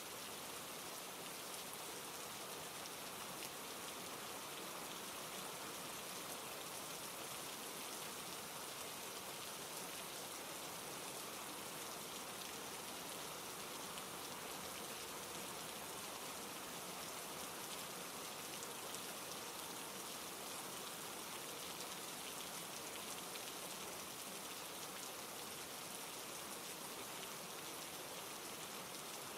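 Steady rain, an even hiss with a fine patter of drops, unchanging throughout.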